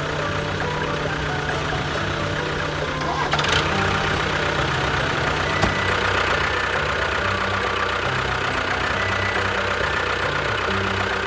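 A small engine running steadily, its pitch shifting up and down now and then, with a brief clatter about three and a half seconds in.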